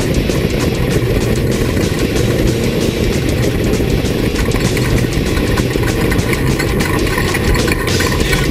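Off-road race vehicle's engine running steadily, a dense low rumble at an even level.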